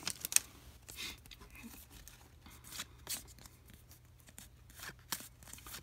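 Trading cards and their pack being handled by hand: a series of short, sharp papery rustles and scrapes as card stock slides and is flicked.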